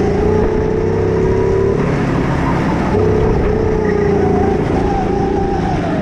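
Go-kart engine running at high revs under throttle, heard from the driver's seat, with a steady pitch that drops out for about a second around two seconds in before coming back.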